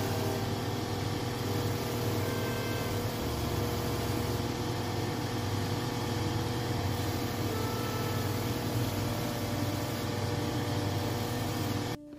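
Shoe finishing machine running steadily, its motor humming and its spinning wheels sanding the edge of a leather sole held against them. The sound cuts off sharply near the end.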